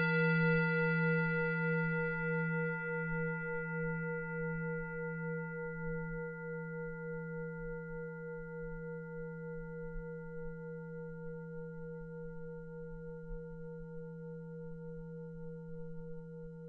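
Singing bowl ringing after a single strike. Its low hum and higher overtones waver in a slow beat and fade gradually. It signals the end of the guided meditation and the start of silent meditation.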